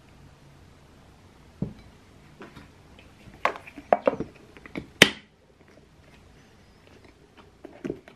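Plastic snap-lock lid put on a glass food-storage container and its locking flaps pressed down: a dull knock about a second and a half in, then a run of sharp plastic clicks, the loudest about five seconds in, and a few more clicks near the end.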